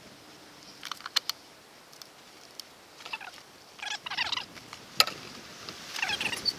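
Domestic fowl calling in short, chattering bursts three times, with a few sharp clicks and one loud click about five seconds in.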